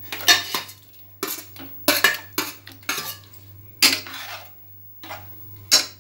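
Steel spoon and steel plate knocking against a steel pot as gram-flour pieces are pushed into the buttermilk, then the ladle stirring in the pot: a run of sharp metal clinks, about a dozen in all.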